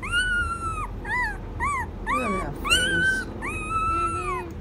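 Rottweiler-Doberman mix puppy crying in high-pitched whines, about five in a row, two short and the rest drawn out, each falling off at the end. It is protesting at being held on its back.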